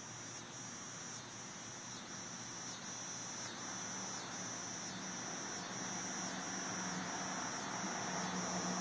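Insects, likely crickets, trilling steadily in a high pitch, the trill broken by short regular gaps about every two-thirds of a second. A faint low hum joins in about halfway through.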